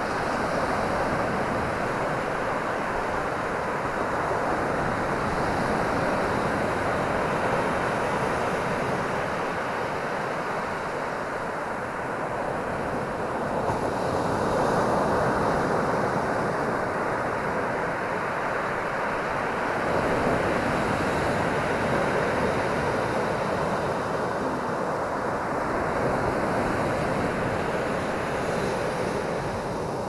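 Atlantic surf breaking on a sandy beach: a continuous roar of rushing water that swells every few seconds as each wave breaks and washes up the shore.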